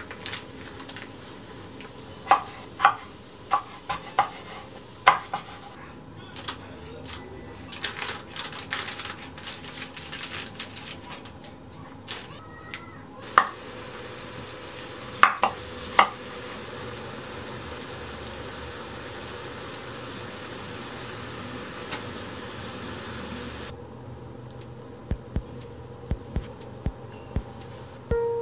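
Kitchen food-prep sounds: scattered sharp knocks of a knife on a wooden cutting board as cucumbers are sliced, with a stretch of crackly handling noise and utensil clinks.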